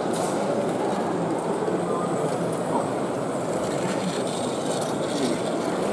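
Steady background murmur of many people talking, with no single voice clear, over the running of a Märklin H0 model locomotive on its track.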